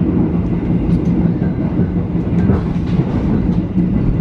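Passenger train running along the track: a loud, steady rumble with a constant hum and a few light clicks of the wheels over the rails.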